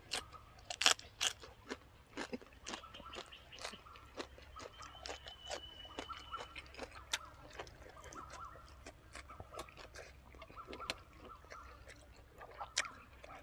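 A person chewing close to the microphone, with many short crisp crunches, while eating braised pork leg with fresh raw vegetables.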